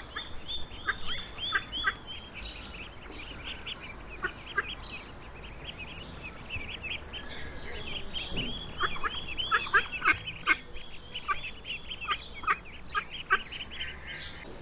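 A brood of mallard ducklings peeping as they walk after their mother: many short, high, falling peeps in quick runs, busiest at the start and again from about eight seconds in.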